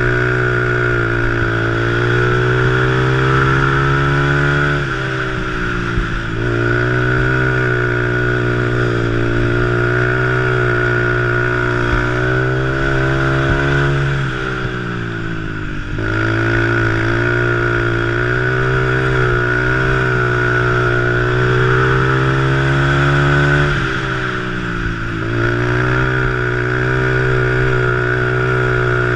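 A three-wheeler ATC's engine heard on board at race pace on a dirt flat track. It is held at high revs, then eases off and picks back up three times, about ten seconds apart.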